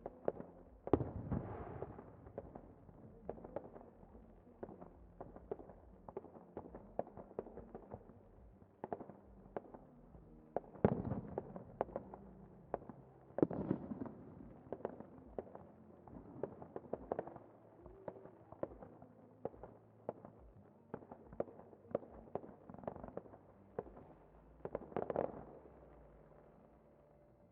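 Fireworks display: a dense string of sharp cracks and pops, several a second, with four louder booms spread through it, dying away just before the end.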